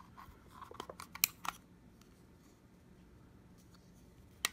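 Hard plastic clicks and scrapes as the snap-on back cover of an Onn walkie-talkie is pried off its battery compartment: a few sharp clicks in the first second and a half, then one more near the end.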